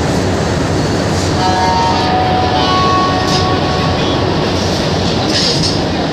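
Inside a rubber-tyred Montreal metro car pulling into a station: a loud, steady rumble of the running train, with faint whining tones from about a second and a half in until about three seconds in.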